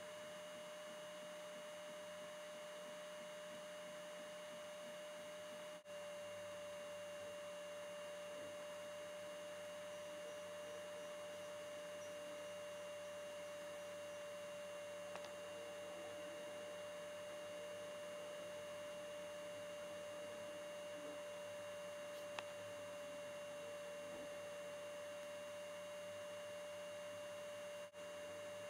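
A steady, high-pitched electronic tone over a faint even hiss, cutting out for an instant twice.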